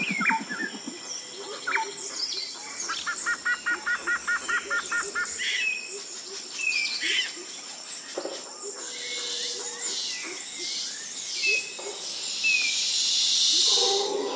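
Wild nature soundscape of many different birds chirping and calling, with a quick run of about a dozen repeated notes a few seconds in, over a steady high-pitched buzz. A hiss swells near the end.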